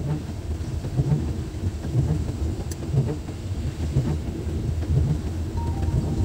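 Heavy rain falling over the low, steady rumble of a bus engine running.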